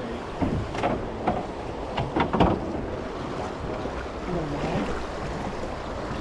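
Rushing river water around a drifting boat, with wind on the microphone, and a few short sharp knocks about one and two seconds in.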